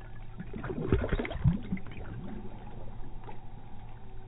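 Water splashing in a hole in the ice as a largemouth bass is let go into it, a short flurry of splashes in the first couple of seconds.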